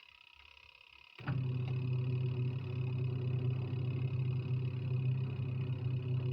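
An 11 kg top-loading washing machine, quiet for about a second, then its motor starts with a click and hums steadily as it drives the wash in a run of several seconds.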